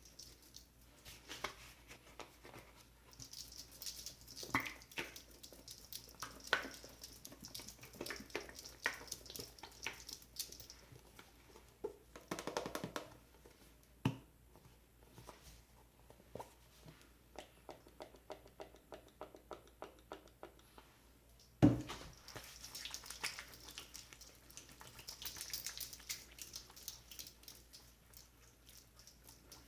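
Close-miked handling sounds: scattered clicks and taps with bouts of hissy rustling, a fast even run of light tapping in the middle, and one sharp thump about two-thirds of the way through.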